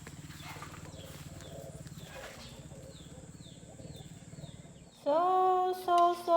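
Birds chirping in a string of short falling notes over a faint low steady hum, then a woman's voice starts speaking about five seconds in.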